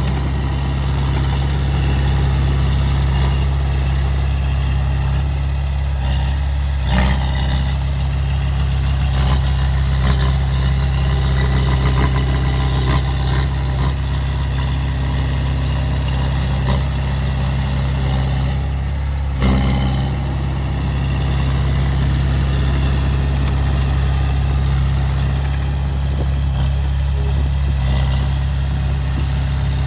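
Heavy diesel engine of a bulldozer or dump truck running steadily at a low, even pitch, with a short knock about seven seconds in and another near twenty seconds.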